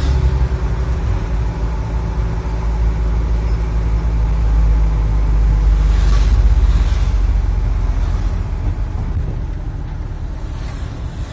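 Steady low rumble of a car's engine and tyres heard inside the cabin while driving. Oncoming vehicles swish past about six seconds in and again near the end, and the rumble gets gradually quieter toward the end.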